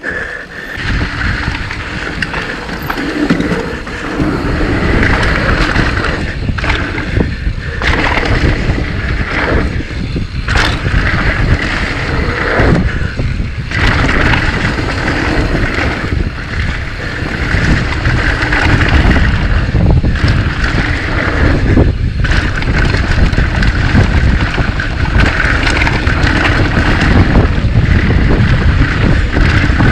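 Mountain bike ride heard from the rider's camera: wind rushing over the microphone and the bike rattling over rough trail, with a few sharper knocks from bumps.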